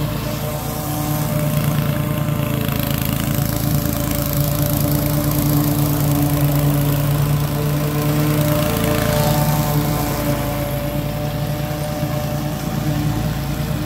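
Toro TimeMaster 30-inch walk-behind mower's engine running steadily while mowing a lawn.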